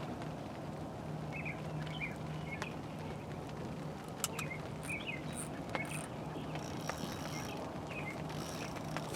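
Outdoor ambience: a bird calling in short chirps, repeated every second or so, over a steady background hiss and a low hum, with a few light clicks.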